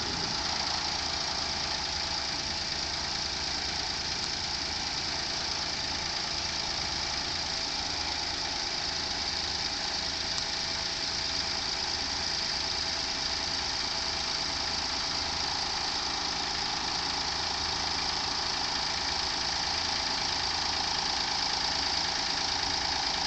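Daihatsu Move (L175S) kei car's three-cylinder 660 cc engine idling steadily.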